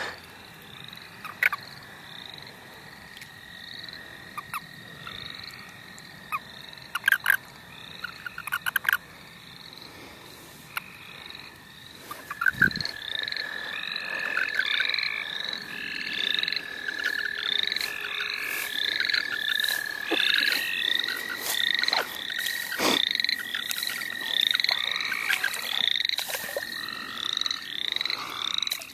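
Spring night chorus of calling frogs and toads: many short repeated calls over a long, steady, high-pitched trill typical of American toads. The trill grows much louder about twelve seconds in and is joined by a second one slightly higher near the twenty-second mark. A few sharp clicks a third of the way in.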